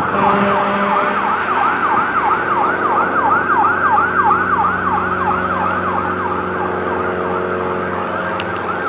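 Fire engine's electronic siren in fast yelp mode, warbling rapidly up and down about three times a second, with a lower steady tone under it for the first second or so. It fades slightly as the engine drives away.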